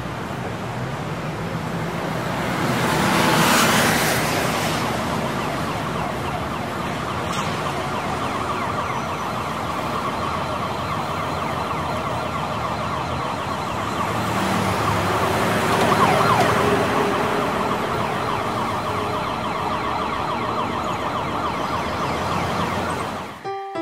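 City street traffic ambience with a siren. Vehicles swell past about three seconds in and again around sixteen seconds.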